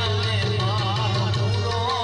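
A man singing a Gujarati devotional folk melody into a microphone, his voice wavering with heavy ornament. Behind him is live accompaniment: a steady low drone and a light, regular drum beat.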